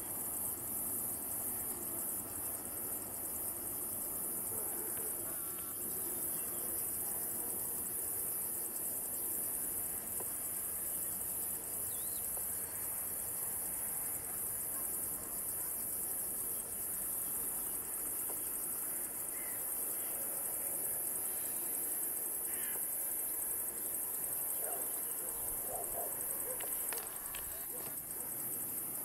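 Steady high-pitched chirring of insects in dry grass, with a few faint short calls a little before the end.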